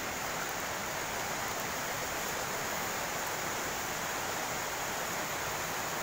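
Steady, even rush of water from a fast-flowing river running over rocks.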